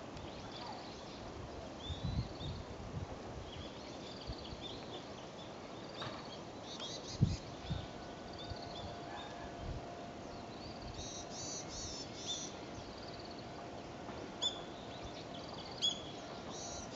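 Small birds chirping and singing over a quiet rural background, with a few low thumps. A faint steady hum starts about halfway through, from an electric train still far off down the line.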